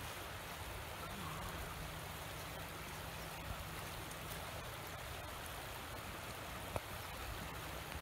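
Shallow river water flowing over rocks and riffles, a steady rushing hiss. A single sharp click about seven seconds in.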